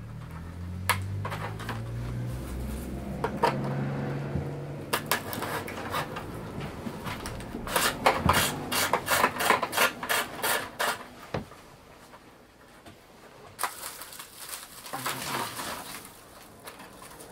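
Dry bamboo strips clicking and rustling as they are threaded and pressed into a plaited bamboo winnowing basket by hand, with a fast run of clicks about eight seconds in that lasts some three seconds. A pigeon coos low in the first few seconds.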